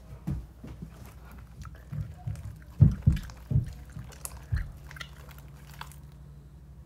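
Handling noise: several low knocks and thumps close together, the loudest about three seconds in, with light clicks.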